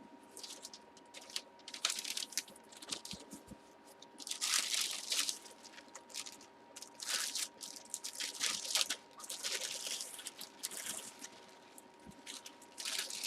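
Crinkling and rustling of packaging being handled and opened, in irregular bursts with the busiest stretch around the middle.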